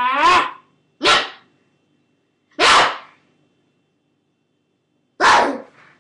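A child's voice giving four short, loud shouts, each cut off sharply and separated by silence.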